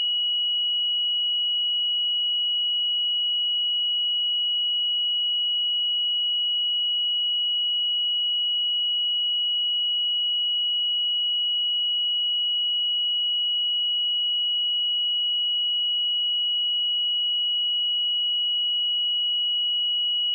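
A pure 2917 Hz sine-wave test tone, held steady at one high pitch and constant loudness.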